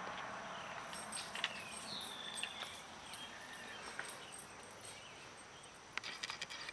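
Quiet outdoor rural ambience: a steady high insect hum, a few short chirps about two seconds in, and scattered light taps that bunch up near the end.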